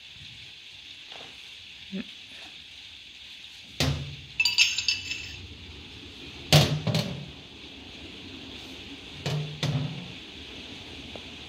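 Heavy steel tools, a large taper-shank twist drill and a tap on its arbor, knocking and clinking against a sheet-steel box lid as they are handled: three groups of sharp knocks, the first with a bright ringing clink, over a steady hiss.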